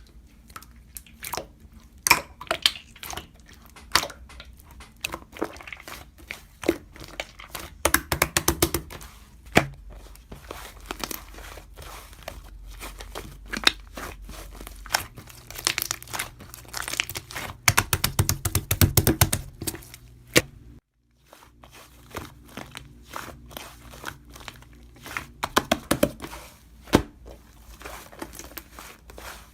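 Close-up handling noise: crinkling, rustling and tearing, as of paper or plastic, broken by many sharp taps and clicks, with two denser bursts of crinkling about a third and two-thirds of the way through.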